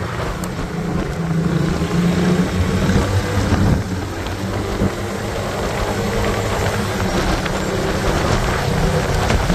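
A touring motorcycle's engine running at a steady road speed, a low hum under a rough rush of wind across the microphone, heard from the rider's seat.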